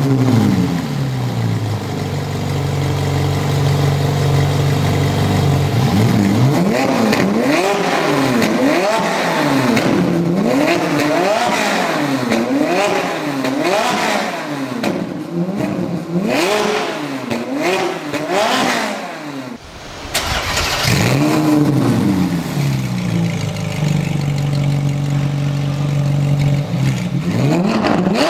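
Ferrari 458 Italia's 4.5-litre V8 through an Fi Exhaust valvetronic system with catless downpipe, valves closed. It flares just after starting and settles to a steady idle, then is blipped through a long run of quick revs, about one a second. After a brief drop about two-thirds through, it flares again, settles back to idle, and starts revving again at the very end as the valves open.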